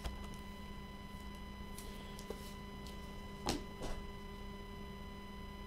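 Steady electrical hum with a few short rustles and clicks of gloved hands handling trading cards and their packaging. The loudest pair comes about three and a half seconds in.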